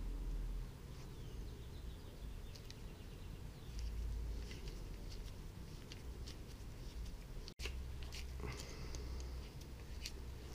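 Small scattered clicks and light scrapes from handling small parts by hand, over a low rumble; the sound drops out for an instant about seven and a half seconds in.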